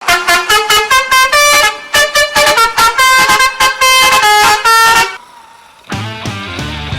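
A quick tune of short, loud, horn-like notes that change pitch from note to note and stop about five seconds in. About a second later, music with low bass notes begins.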